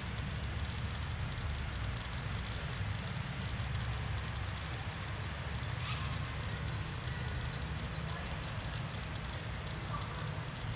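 Outdoor background of steady low rumble and hiss, with a run of short, high chirps from a bird calling repeatedly.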